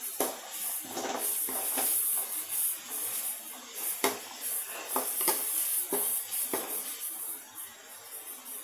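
Metal spatula scraping and knocking against an aluminium kadai as chopped onions and garlic fry in oil, a series of irregular sharp knocks over a light, steady sizzle.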